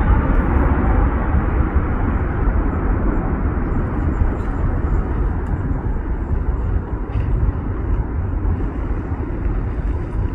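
Jet engines of a four-engined widebody airliner climbing out after takeoff: a deep, rumbling roar that slowly fades as the aircraft moves away, with wind buffeting the microphone.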